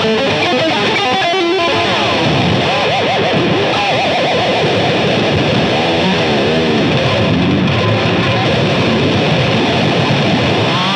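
1986 Ibanez RG430 electric guitar being played, with notes swooping up and down in pitch.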